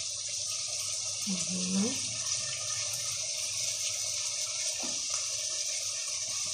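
Potato chunks, carrot and onion frying in oil in a steel stockpot, a steady sizzle.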